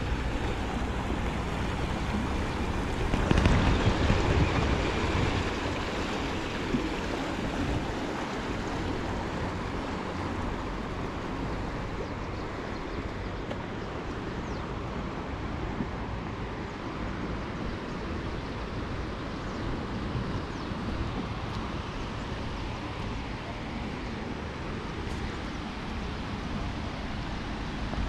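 Rain-swollen Athi River rushing over its rocky bed, a steady rush of muddy floodwater, briefly louder around three to five seconds in.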